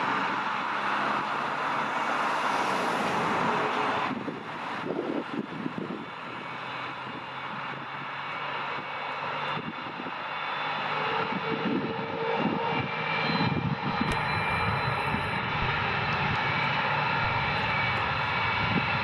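Lockheed Martin F-22 Raptor's twin Pratt & Whitney F119 turbofans running at low power as the jet rolls along the runway, a steady jet roar with a faint whine. The sound dips about four seconds in, then builds gradually as the jet comes closer.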